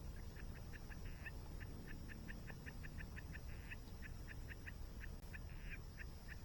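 A bird calling in a fast series of short chirps, about four a second, over the steady rush of a waterfall.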